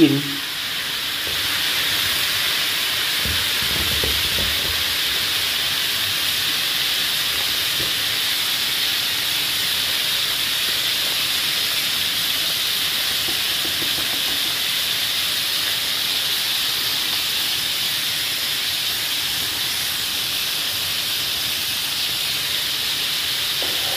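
Battered mushrooms deep-frying in a pan of hot oil: a steady, even sizzle of bubbling oil.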